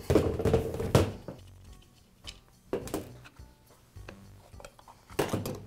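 Clunks and a scrape as a Milwaukee corded drill is turned over and set down on a metal workbench. Then a few small, sparse clicks of a screwdriver at the brush-door screw, and another knock near the end.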